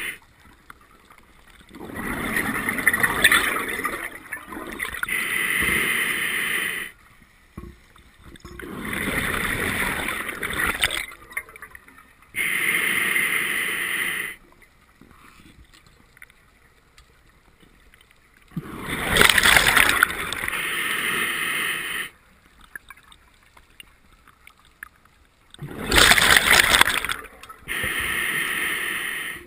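Scuba diver breathing through a regulator underwater: four breaths, each a gurgling rush of exhaled bubbles followed by the hiss of an inhale, with a few seconds of quiet between breaths.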